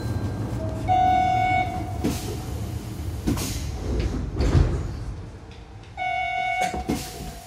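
Train passenger-door chime sounding about a second in, with clunks and the hiss of the sliding doors working. The chime sounds again about six seconds in as the doors start to close, followed by more door clunks.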